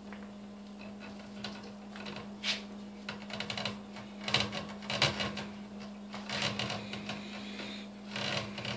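Gray fox hide being pulled down off the carcass by hand: irregular rustling, scraping and clicking, with the hanging chain clinking now and then, loudest about halfway through. A steady low hum runs underneath.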